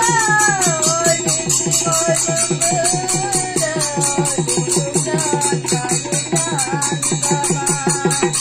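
A woman sings a folk melody in long, bending notes over a fast, even beat of small brass hand cymbals and a drum.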